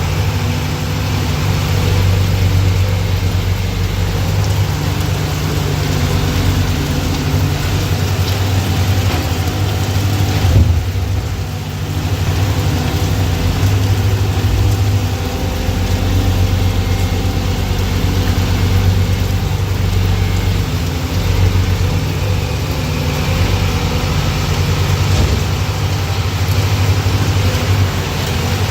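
Hyundai R215L crawler excavator's diesel engine running, swelling and easing as the load changes, with a single sharp knock about ten and a half seconds in.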